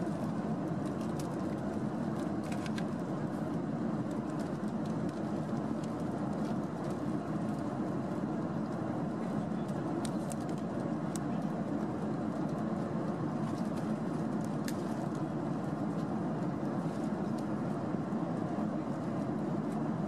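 Steady in-flight cabin noise of a Boeing 737, an even rush of engines and airflow, with a few faint clicks and rustles as a cardboard snack box and a plastic snack packet are handled.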